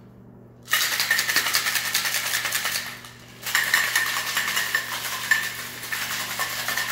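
Stainless-steel cocktail shaker shaken hard, its contents rattling fast inside the tin. It starts about a second in, stops briefly, then starts again.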